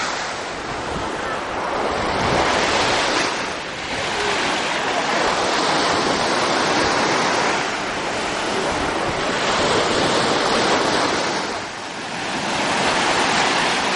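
Sea surf breaking on a sandy beach: a steady rushing wash of waves that swells and eases about every four seconds.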